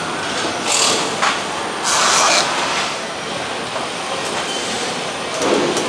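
Motorcycle assembly-line factory noise: a steady mechanical din with short hissing bursts, the loudest about two seconds in.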